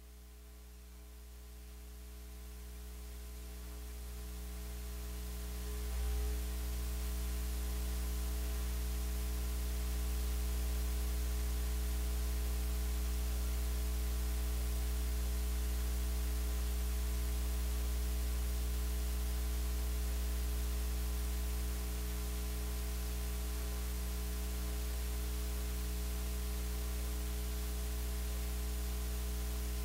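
Steady electrical mains hum with static hiss on an open audio line, fading up over the first several seconds and then holding level.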